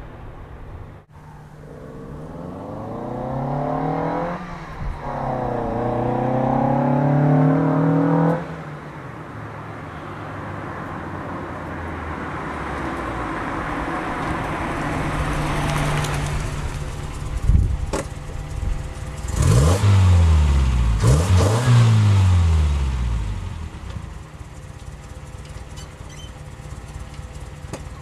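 1981 Toyota Corolla's 3TC four-cylinder engine through a Dynomax Super Turbo muffler, pulling hard up through two gears, then lifting off and running at a steady, slowly rising speed. Near the end it revs up and down a few times before settling back to a low steady run. The car has an exhaust leak at the flange.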